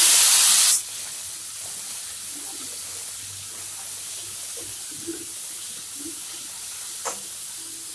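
Grated onion frying in hot oil in a kadhai. A loud hiss as the onion hits the oil drops sharply within the first second to a steady sizzle.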